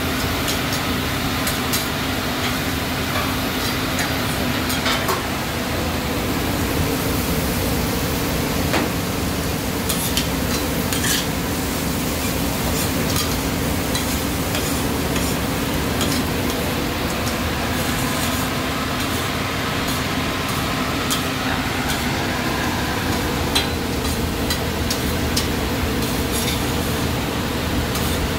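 Chopped peppers, flatbread and sausages sizzling on a commercial flat-top griddle, with metal tongs clicking and scraping on the steel plate now and then, over a steady background hum.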